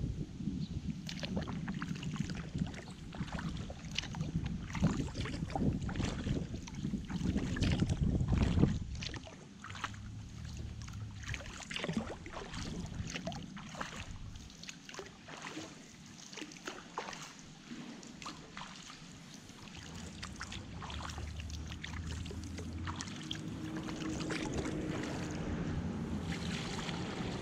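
Kayak paddle strokes on a slow river: irregular splashes and drips of water off the paddle blades. Wind rumbles on the microphone for roughly the first nine seconds, then drops away.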